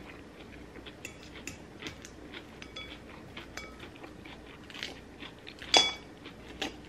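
Close-up chewing and crunching of a salad with crispy onions, with small clicks throughout and one sharper clink about six seconds in.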